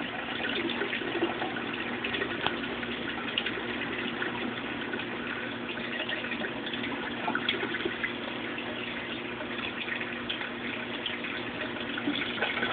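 Aquarium water circulating, a steady trickle and rush of running water with a low steady hum and a few faint clicks.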